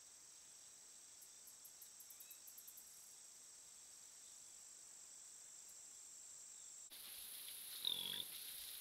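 Night insects, crickets, trilling steadily, with a quick run of ticks early on. Then a sharp change to a daytime hiss, and just before the end a short wild hog grunt-squeal, the loudest sound.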